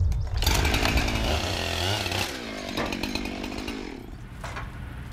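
Chainsaw running at full throttle, cutting through the end of a pine log to trim it to length. The cutting noise starts about half a second in and drops off after about two seconds as the saw comes off throttle and winds down.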